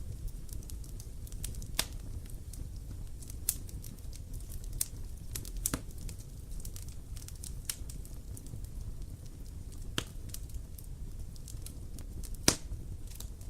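Wood campfire burning, with irregular sharp crackles and pops over a low steady rumble; one louder pop near the end.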